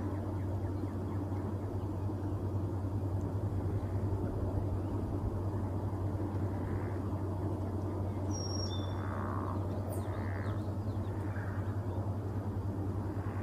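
Steady low rumble with a constant hum, and a few short, high bird whistles and faint chirps in the second half.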